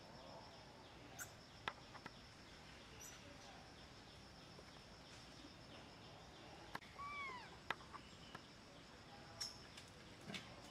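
Quiet outdoor ambience with a steady high insect buzz, a few sharp clicks, and, about seven seconds in, a short animal call that rises and falls in pitch.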